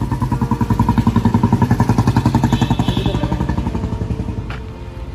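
A passing motorbike's engine running with a rapid, even putter. It grows louder to a peak about two seconds in, then fades away.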